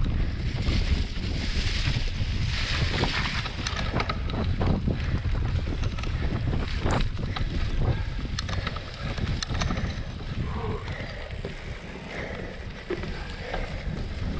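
Wind buffeting the microphone while a cyclocross bike is ridden over wet, muddy ground, with frequent clicks and rattles from the bike over the bumps.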